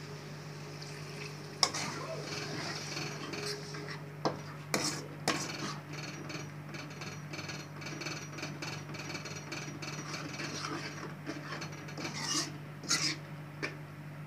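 A steel ladle stirring tamarind water into a thick spiced garlic curry in an aluminium kadai, scraping the pan in quick, even strokes, with sharp clinks of ladle on pan a few times in the first five seconds and again near the end. A steady low hum runs underneath.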